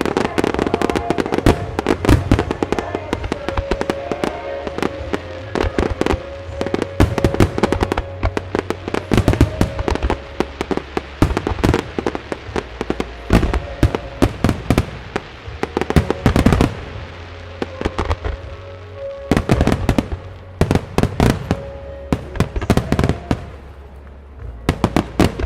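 Starmine fireworks barrage: shells bursting in rapid, irregular volleys of sharp bangs, easing off briefly about two-thirds of the way through before picking up again. Music plays steadily underneath, the soundtrack the display is set to.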